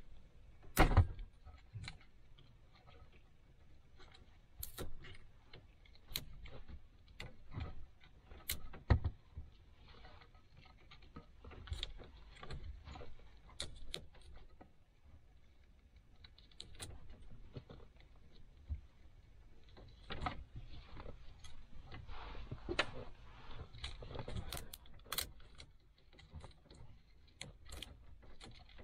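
Irregular clicks, taps and rustles of hands handling car wiring and tape, with two sharper knocks about one second in and about nine seconds in.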